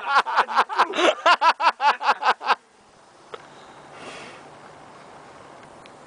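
A person laughing in a rapid, even run of about six pulses a second, stopping abruptly about two and a half seconds in. About four seconds in, a brief soft whoosh as a fire-breather blows a cloud of cocoa powder and icing sugar through a torch flame.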